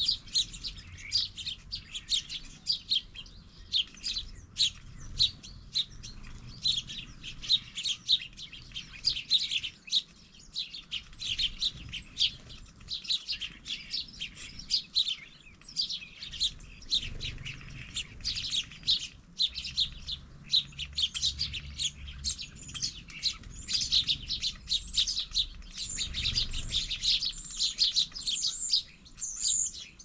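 A flock of small garden birds chirping constantly, many short overlapping chirps at once.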